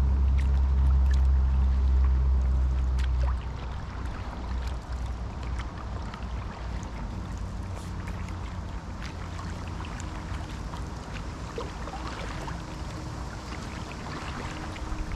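Water lapping and trickling around a stand-up paddleboard being paddled, with small splashes and drips. A low ambient-music drone cuts off about three seconds in.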